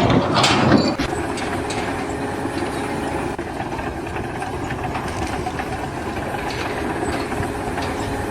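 Steady mechanical noise of machinery or an engine running, with faint ticks and clatter.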